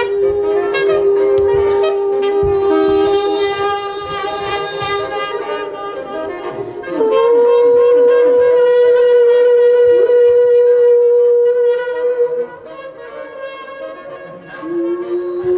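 Live saxophone holding long notes over light percussion: one low note, then a jump to a higher held note about seven seconds in. It drops away near the twelve-second mark and comes back on a low note near the end.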